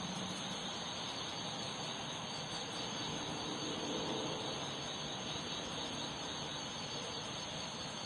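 Steady rain falling on a garden pond: an even hiss of drops landing on water.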